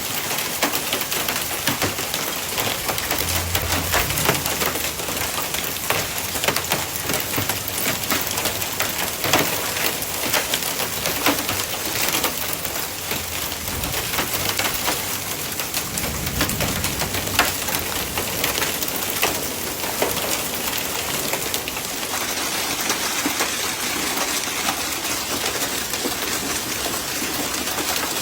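Hail and rain pounding on surfaces: a dense, steady patter of hard pellet impacts over a rushing downpour.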